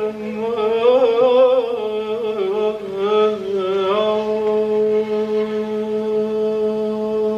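Persian classical singing by a male voice with violin accompaniment: an ornamented, wavering melodic line that settles into one long held note about four seconds in.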